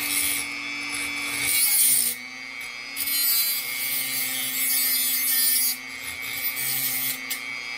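Dremel rotary tool running steadily with a cut-off wheel, grinding through a thin metal rod. The grinding swells and eases several times as the rod is pressed to the spinning disc.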